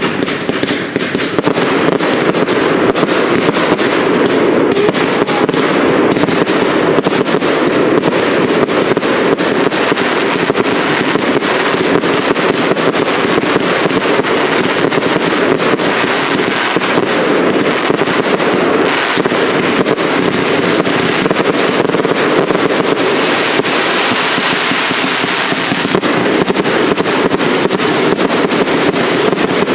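Fireworks cakes firing a continuous barrage of rapid bangs and crackling, as shells burst overhead with no let-up.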